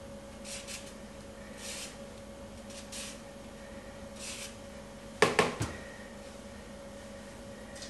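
Lemon rind rasped across a small handheld zester in four short scraping strokes about a second apart. About five seconds in come two or three sharp knocks, the loudest sounds, as the lemon and zester meet the board and bowl.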